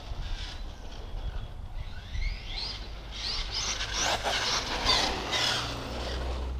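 Brushless electric motor and drivetrain of an RC monster truck (HPI Vorza with a Leopard 4082 1600kv motor) whining, with a rising pitch as it speeds up about two seconds in, and tyre and drivetrain noise on asphalt that grows louder from about four seconds on as the truck comes near.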